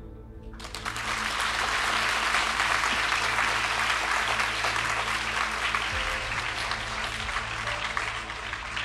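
Audience applauding, starting about half a second in after the closing "thank you" and easing slightly toward the end, over soft background music.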